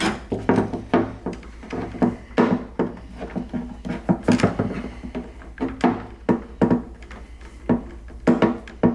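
A string of irregular knocks and clicks from hand work on a car door's handle and lock hardware, with a steady low hum underneath.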